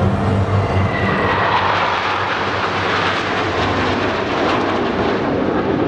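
Jet roar from a formation of T-50B Golden Eagle jets passing overhead. The roar swells after about a second, with a slight falling pitch, then slowly eases.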